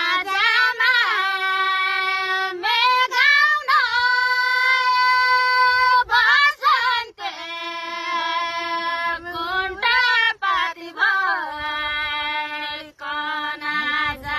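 A high solo voice singing a Nepali folk song unaccompanied, in long held notes with wavering, ornamented bends where each note begins.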